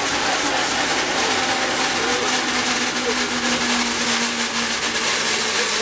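Loud, steady rushing noise with a low hum running through it, from a running machine.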